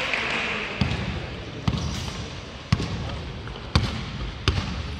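A basketball being dribbled on a court floor: five bounces, roughly a second apart.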